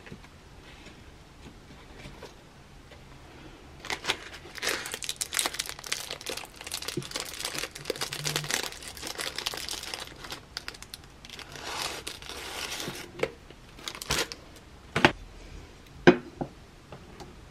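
Crinkling and rustling of a cardboard incense-stick box and the plastic wrap around the sticks as they are pulled out, lasting about nine seconds. Near the end come a few sharp knocks as a flat white incense holder is set down on a wooden desk.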